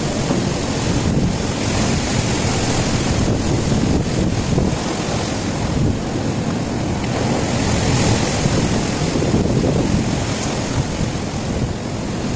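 Cyclone-force wind rushing through palm trees and other trees, loud and steady, with the wind buffeting the microphone.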